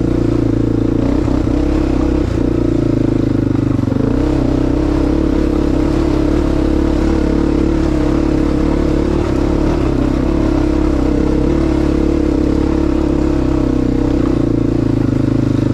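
ATV engine running at a steady, even pitch while the machine travels along a rough dirt trail.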